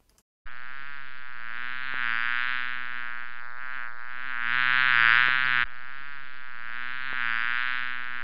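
Buzzing bee sound effect: a steady, insistent buzz that starts about half a second in, grows louder around the middle, breaks off for an instant and resumes.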